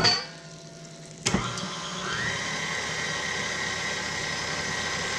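A knock, then about a second in a KitchenAid Classic Plus stand mixer is switched on: its motor spins up with a rising whine and then runs steadily at low speed, the wire whip beating heavy cream in the steel bowl.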